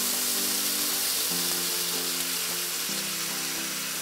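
Browned chicken pieces and teriyaki marinade sizzling in a hot skillet as the sauce is poured in, a steady hiss. Soft background music plays under it.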